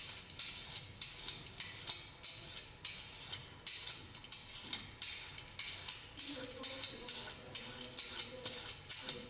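Stainless steel julienne peeler drawn again and again down a raw carrot, shaving off thin strips: a rapid run of crisp scraping strokes, about two or three a second.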